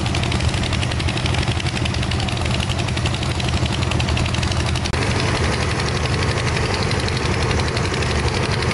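Crawler excavators' diesel engines running at close range: a steady low drone with a fast, even clatter over it. The sound briefly drops out about five seconds in.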